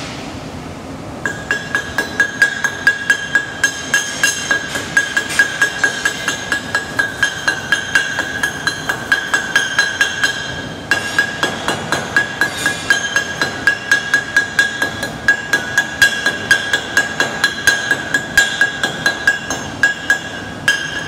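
Chipping hammer knocking slag off a fresh 7018 weld bead on a thick steel block, about four strikes a second, each one leaving the steel ringing at the same clear tone. The chipping breaks off briefly about ten seconds in, then starts again.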